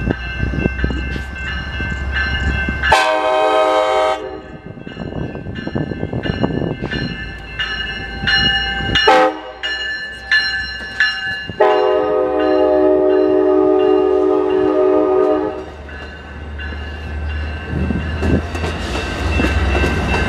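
Amtrak California passenger train passing close by, its locomotive horn sounding three times: a blast of about a second some three seconds in, a shorter one near nine seconds, then a long one of about four seconds. Under it a bell rings in a steady rhythm, and the cars rumble as they roll past.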